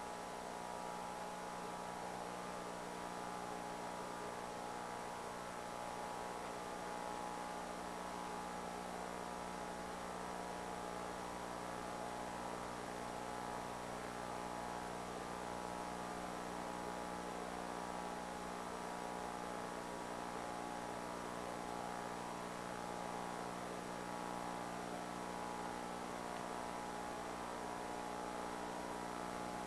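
Steady electrical mains hum over a layer of hiss: the background noise of the recording, with nothing else happening.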